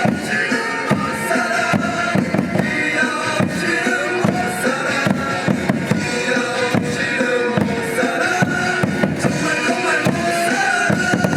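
Loud cheering music with a melody over a steady drum beat, played over a ballpark's sound system.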